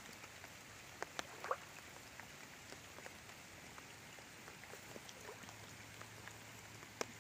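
Heavy rain falling steadily, with scattered single drops ticking close by.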